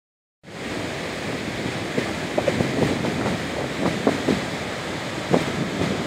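Gullfoss waterfall's steady rush of falling water, starting about half a second in, with wind gusting on the microphone now and then.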